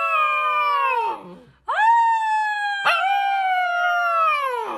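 A dog howling: long, high, wavering calls that slide down in pitch at their ends, with a short break about a second and a half in and a new call starting about three seconds in.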